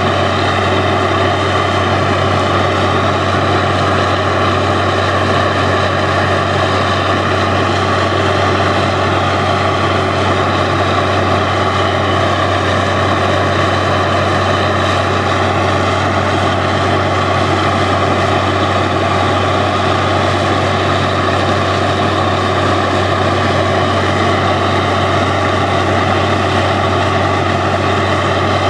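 Truck-mounted borewell drilling rig running steadily under load, its engine and air compressor driving the drill while compressed air blows water and spray up out of the borehole around the drill pipe.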